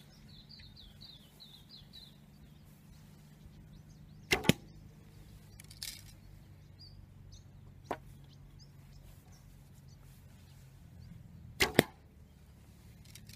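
SAS Tactical Survival Bow, a folding survival bow shot with its limb pivot pin screws removed, loosing two arrows about seven seconds apart, each a sharp double snap of the string. On the second shot near the end, the string also slaps the archer's arm guard. A couple of lighter clicks come between the shots.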